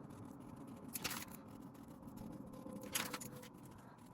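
Two brief papery scratches about two seconds apart, from paper and pen being handled while working down a budget list.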